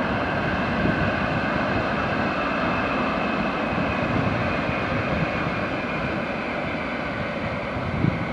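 Shinkansen bullet train running across a steel truss bridge: a steady rushing rumble with faint high tones in it, easing off slightly near the end.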